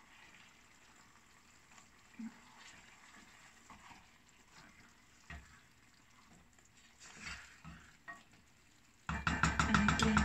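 Chicken pieces simmering quietly in a saucepan while a wooden spatula turns them, with a few soft knocks against the pan. About nine seconds in, a sudden, much louder clatter of rapid clicks of utensils against the pan.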